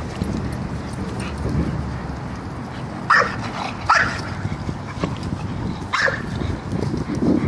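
Pit bull-type dogs playing rough, with three short sharp barks about three, four and six seconds in, each dropping in pitch, over a steady low rumble.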